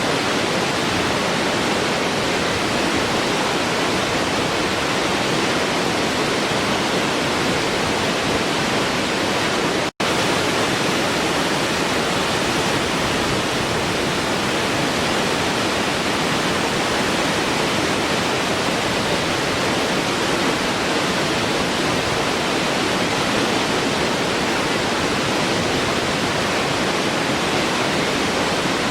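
Waterfall rushing steadily, a dense even roar of falling water, with a momentary cut to silence about ten seconds in.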